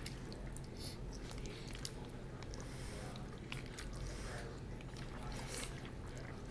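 Close-miked eating of jjajangmyeon black bean noodles: soft slurps, lip smacks and chewing, in short irregular bursts over a low steady hum.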